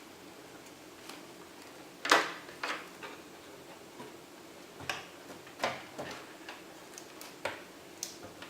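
Irregular small clicks and knocks of hardware being handled inside a desktop PC case during a motherboard install, the loudest a couple of seconds in.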